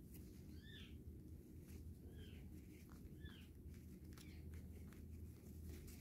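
Faint short chirps from an Indian ringneck parakeet, three of them, each rising and falling in pitch, among soft scattered clicks over a low steady hum.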